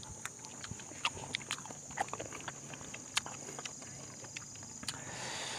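Close-up eating sounds of people eating with their hands: chewing with irregular small wet clicks and lip smacks, over a steady high-pitched insect chirr.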